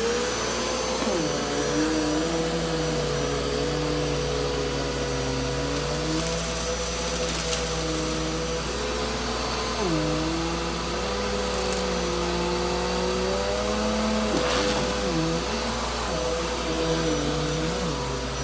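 Bissell PowerForce Helix upright vacuum switched on, its motor winding up to a steady whine and running. Its lower tones dip and shift in pitch a few times as it is pushed about.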